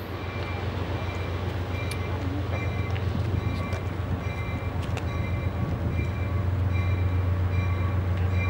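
Diesel locomotive of an approaching train, a steady low engine drone growing louder, with a faint high ding repeating about twice a second.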